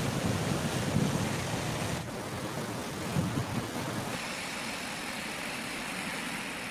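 River in flood rushing and churning, a steady noise of fast-moving floodwater. The sound shifts abruptly about two seconds in and again about four seconds in.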